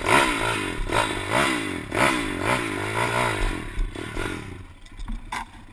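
Pit bike's small single-cylinder engine revved in repeated throttle blips, the pitch rising and falling about every half second, then easing off about four seconds in.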